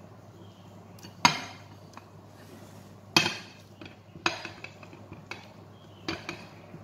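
Spatula and ceramic plate knocking and clinking against a glass bowl as sautéed onions are scraped off the plate: a few sharp knocks with short ringing, the two loudest about one and three seconds in.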